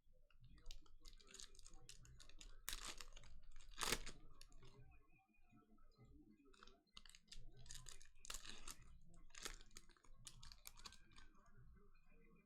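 Quiet crinkling and rustling of a trading-card pack being opened and its cards handled, in irregular short scratchy strokes, with a few louder crinkles.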